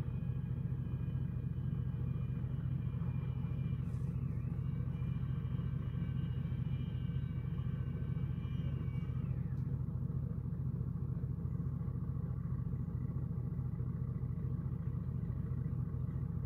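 An engine runs steadily at idle with a low hum. Higher whining tones above it dip briefly about four seconds in and fade out about ten seconds in.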